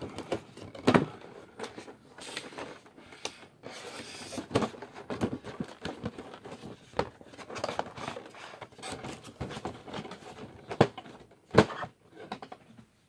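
Handling noise: irregular clicks, knocks and rustles, with sharper knocks about a second in and twice near the end.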